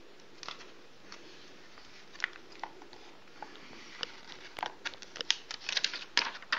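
Paper pages of a printed Quran being handled and turned: soft scattered clicks and rustles that thicken into a quick flurry over the last two seconds.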